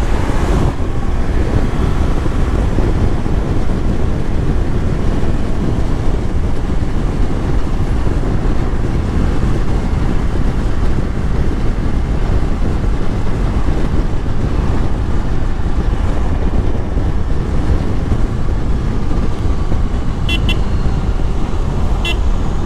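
Ducati Multistrada V4S being ridden at road speed: a steady rush of wind over the microphone, with the V4 engine running underneath.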